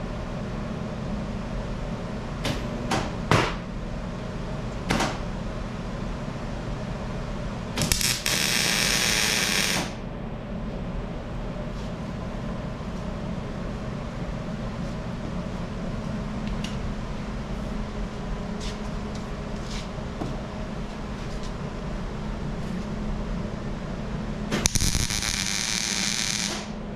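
Two welding tacks on a stainless steel intake bung, each an arc hissing steadily for about two seconds, the first about eight seconds in and the second near the end, over a steady shop hum with a few sharp clicks early on.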